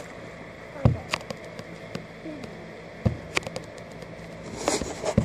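Water sloshing with small splashes around a person wading, with scattered clicks and knocks of handling noise from a phone in a waterproof case. There is a low thump about a second in and a short splashy rush near the end.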